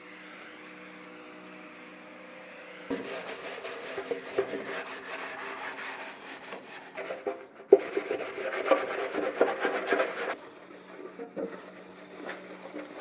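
Microfiber towel rubbing briskly over the primed sheet metal of a car's engine bay, wiping it down before sanding. The rubbing starts about three seconds in, after a low steady hum, is strongest in the middle and eases off near the end.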